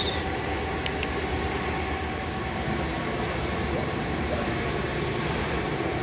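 Steady machinery hum and rush with a few faint steady tones, and two light clicks about a second in.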